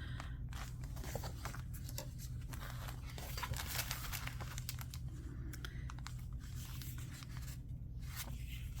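Sheets of craft and sticker paper being handled, rustling and tearing, with scattered small clicks and crinkles over a steady low hum.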